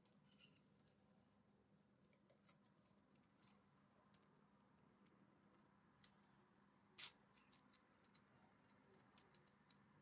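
Faint, scattered sharp clicks and ticks of a California scrub-jay pecking at mixed seed on a wooden stump, its bill striking seeds and wood. The loudest click comes about seven seconds in.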